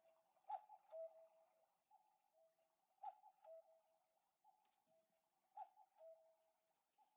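Homemade cuckoo clock striking the hour with its cuckoo call: three calls about two and a half seconds apart, each a click and then a higher note followed by a longer lower note, played faintly.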